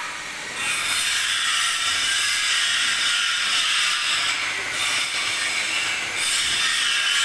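Steady, loud hissing noise of a metal-fabrication workshop at work, easing briefly a few times.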